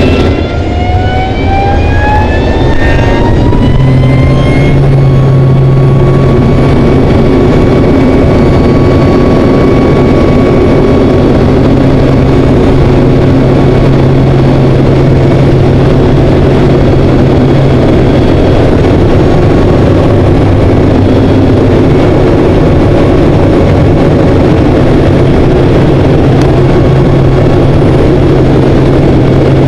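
KT-1B Wong Bee's turboprop engine and propeller heard from inside the cockpit in flight, over a loud rush of air. A whine rises in pitch over the first four seconds or so as power comes up, then the engine runs steadily.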